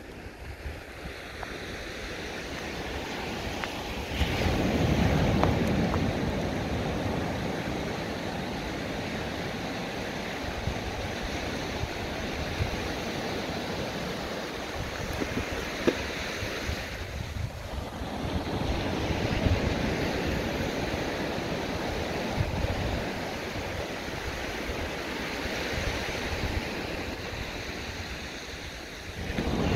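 Waves breaking and washing up a sandy beach, swelling louder twice as bigger waves come in, with wind buffeting the microphone.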